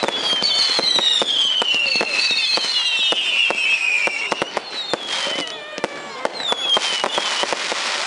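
Fireworks display: a rapid run of bangs and crackles from bursting shells, with several high whistles gliding down in pitch, the longest in the first half.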